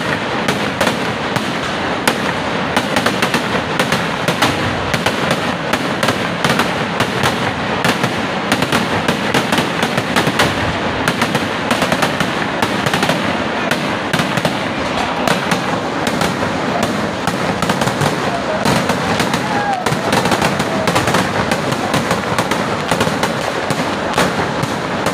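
Fireworks display: aerial shells and crackers bursting in a dense, continuous barrage, many sharp bangs a second overlapping into one long crackling roll.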